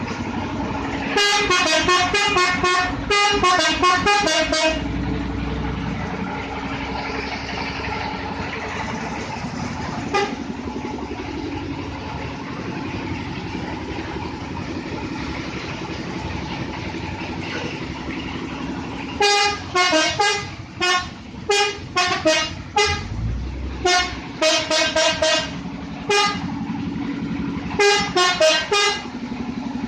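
Telolet multi-tone horn on a Toyota Vios playing rapid runs of short pitched toots that change note from one toot to the next. It plays one spell in the first few seconds and a longer spell over the last ten seconds, with a steady engine hum in between.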